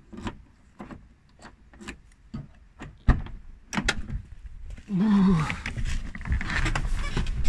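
Key working in the driver's door lock of a Toyota AE86 Sprinter Trueno: a run of small metallic clicks, then a sharp clunk about three seconds in as the door is opened. From about five seconds on, rustling and shuffling as someone climbs into the seat.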